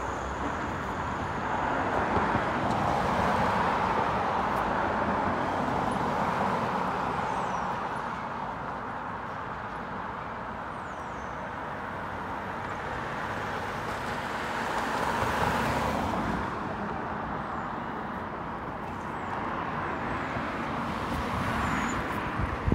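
Road traffic: cars and a van passing one after another, engine and tyre noise swelling as each goes by, loudest a few seconds in and again about sixteen seconds in.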